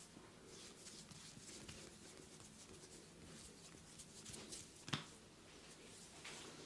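Faint rubbing and rustling of hands working over skin and hair during a massage, with one sharp crack about five seconds in.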